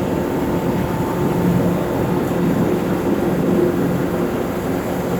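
Heavy diesel truck engine running steadily under load, with a constant hum.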